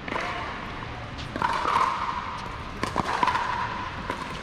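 A few sharp knocks of a plastic pickleball bouncing on the hard court and striking a paddle. From about one and a half seconds in, a steady high-pitched drone runs underneath.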